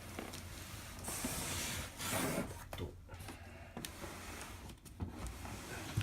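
Handling noises on a workbench: two brief rubbing or scraping sounds about one and two seconds in, then scattered small clicks and knocks, over a steady low hum.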